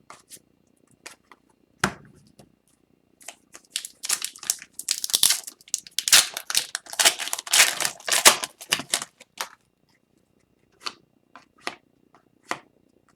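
Hockey trading cards being handled and flipped through: scattered light clicks, with a dense run of crisp rattling and rustling in the middle.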